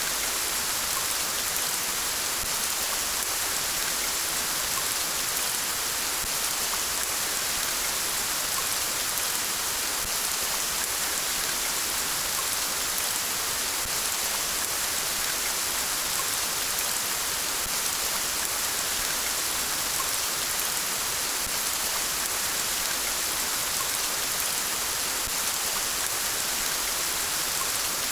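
Steady rain falling, a continuous even hiss that does not change.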